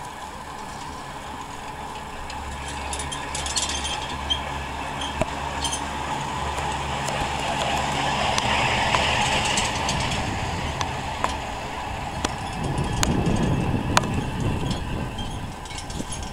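Skis scraping and hissing over packed snow during a downhill run, swelling and easing with the turns. Several sharp clicks come in the second half.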